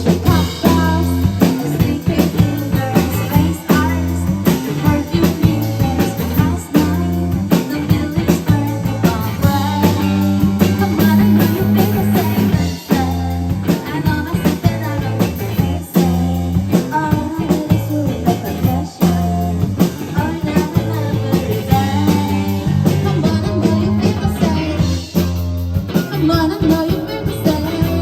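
A rock band playing loudly: drum kit keeping a steady beat under bass and electric guitar. The full band comes in at the very start after a quieter passage.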